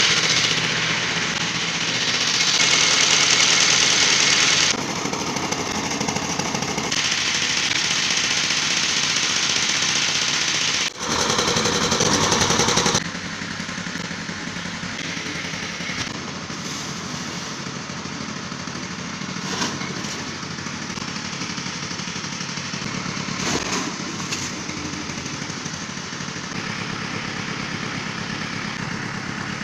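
Pile-driving machinery running: a steady engine drone with a fast, even rattle and a few short knocks. The sound changes abruptly several times.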